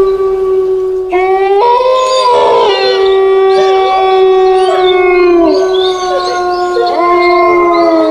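Several canines howling together in long, overlapping drawn-out howls, used as a spooky ghost sound effect. New voices glide up and join about a second in and again a moment later, one howl sinks away past the middle, and another rises in near the end.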